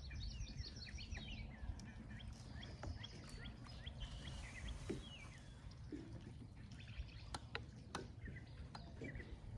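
Small birds chirping and twittering in quick, repeated short calls, faint over a steady low rumble, with a few light clicks.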